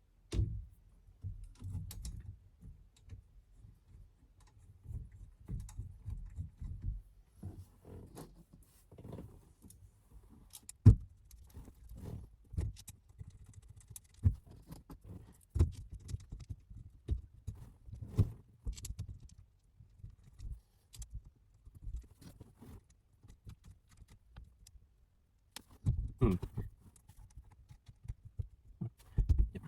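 Irregular clicks, knocks and small rattles of metal parts and tools being handled as a steering wheel is fitted to a quick-release hub, with one sharp knock about eleven seconds in.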